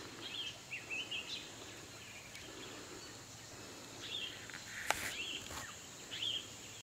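Birds calling in short repeated chirps over a faint steady outdoor hiss, with a single sharp click about five seconds in.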